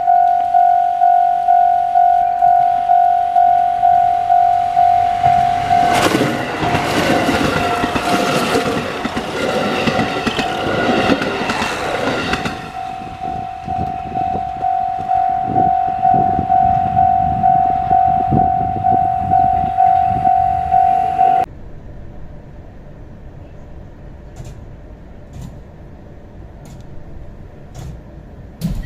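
Japanese level crossing warning bell ringing about twice a second. About six seconds in, a five-car KiHa 183 series diesel multiple unit passes through the crossing for about six seconds. The bell stops suddenly about twenty seconds in.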